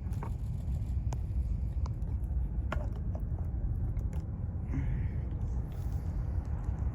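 Distant Falcon 9 rocket launch: the nine Merlin first-stage engines heard as a steady deep rumble after the sound has travelled miles from the pad, with a few faint clicks over it.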